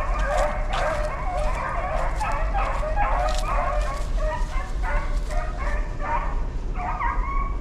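Several hunting hounds yelping and barking over one another in a dense, continuous chorus of short, high calls.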